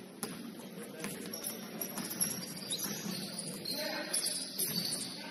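Gym ambience during a basketball game: a steady low din of movement and distant voices, with scattered light clicks and brief high-pitched squeaks.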